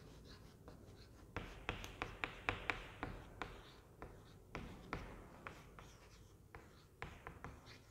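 Chalk writing on a chalkboard: a faint, irregular run of short taps and scratches as letters are written.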